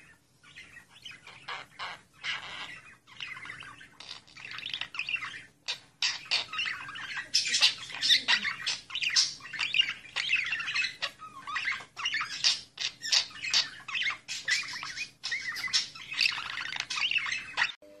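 Budgerigar chattering and warbling: a quick, jumbled run of squawks, chirps and trills. It is sparse at first and grows busier from about six seconds in.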